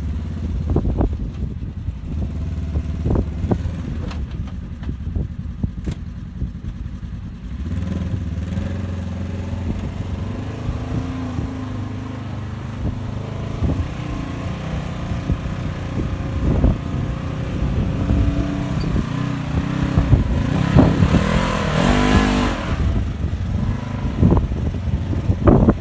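Polaris General 4 side-by-side's engine running and revving up and down under changing load, with clattering knocks throughout. The revs climb highest about twenty seconds in.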